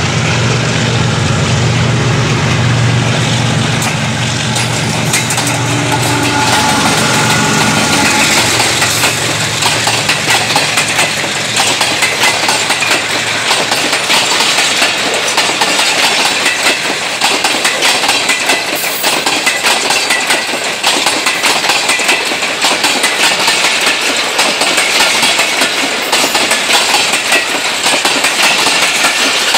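Diesel locomotive's engine running with a steady low hum as it comes by, then the passenger coaches of the express pass close, their wheels clattering over the rail joints in a dense, rapid rhythm from about seven seconds in.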